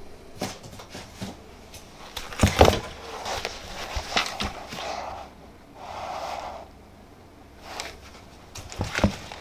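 Handling of a new pair of Nitori N Warm fleece slippers and their tag, with soft rustling, and a few sharp knocks as they are set down on a wooden floor. The loudest knocks come about two and a half seconds in, with more near the end.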